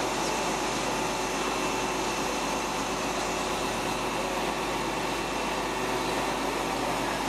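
Truck-mounted HIAB loader crane working, its truck engine and hydraulic pump giving a steady mechanical hum with a faint steady whine as it lifts a heavy bell.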